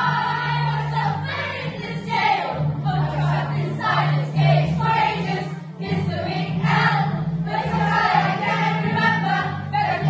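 A group of voices singing together over a musical accompaniment with a steady bass line.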